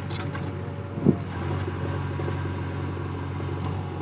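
JCB backhoe loader's diesel engine running steadily while it digs, with a loud short knock about a second in.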